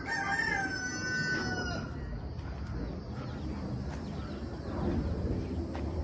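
A rooster crowing once, a drawn-out call of about two seconds that drops in pitch at the end.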